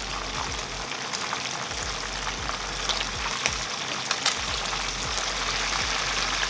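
Chicken pieces frying in hot oil in a pan: a steady sizzle with scattered crackles, and a few sharper pops a little past the middle.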